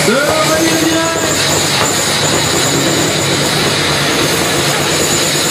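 Two loaded diesel semi trucks launching in a drag race, their engines revving up sharply at the start, then running flat out at full throttle in a continuous heavy roar.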